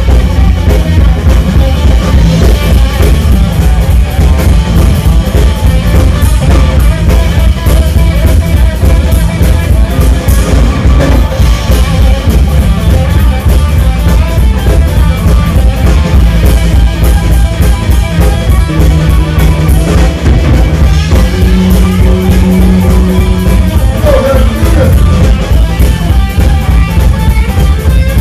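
Live blues band playing loud: electric guitar, bass guitar and drum kit with a steady beat, and a couple of long held notes past the middle.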